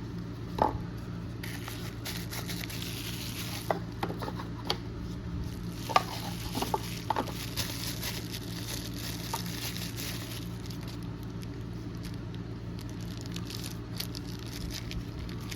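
Crinkling and rustling of a pocket knife's packaging and sheath being unwrapped and handled, with scattered sharp clicks and taps, the loudest about half a second and six seconds in. A steady low hum runs underneath.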